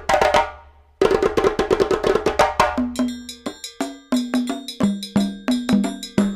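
Background music: a fast, rhythmic run of dry wood-block-like percussion clicks, with a brief break in the first second, joined about halfway by short low pitched notes carrying a simple melody.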